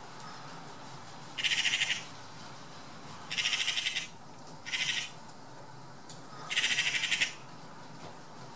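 Eurasian magpies chattering: four harsh, rapid rattling calls, each under a second long, spaced a second or two apart. This is the magpie's alarm chatter used when mobbing a bird of prey at its kill.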